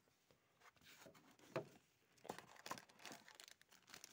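Faint crinkling and rustling of plastic packaging being handled, with small scattered clicks, becoming busier about halfway through.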